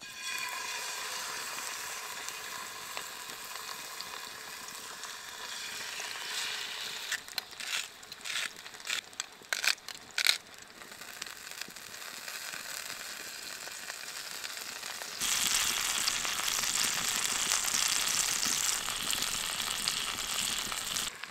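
Halibut fillets frying in a cast iron skillet, a steady sizzle. About halfway through comes a run of sharp clicks from a hand grinder turned over the pan. From about 15 s in the sizzle gets louder.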